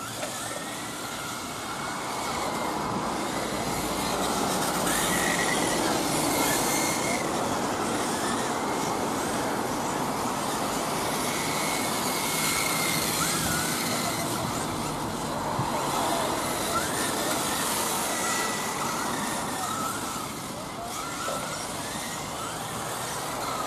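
Several 1/10 scale electric RC touring cars racing: thin high motor whines rising and falling as the cars speed up and slow for corners, over a steady hiss of tyres on damp asphalt.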